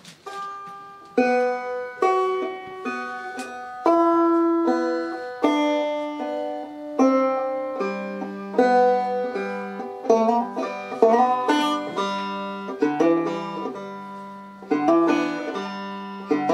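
Banjo picking a simple scale exercise tune one note at a time, with slides and hammer-ons, without the clawhammer stroke yet. Single ringing notes step through the scale, and from about halfway a lower string keeps sounding under the melody.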